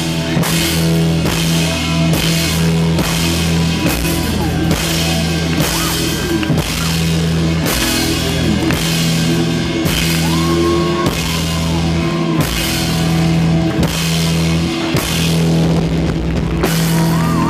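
Rock band playing live: electric guitars, bass guitar and a drum kit, the drums keeping a steady beat of about two hits a second under sustained bass notes and bending guitar lines.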